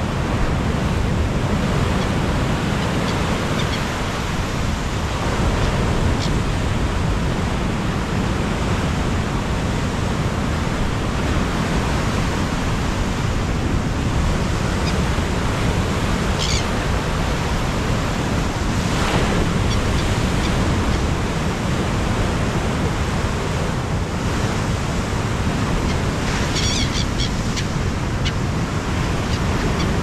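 Black Sea storm surf: heavy waves breaking and washing up the shore in a steady, loud rush. A few short, high gull cries come through, most clearly near the end.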